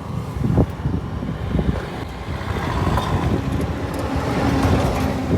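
KTM Duke 250 motorcycle running, a steady low engine rumble that grows slightly louder in the second half, with its drive chain run completely dry.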